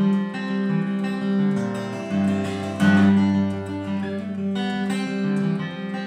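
A steel-string dreadnought acoustic guitar playing a bluegrass tune solo: picked melody notes over ringing bass notes, with a louder strummed chord about three seconds in.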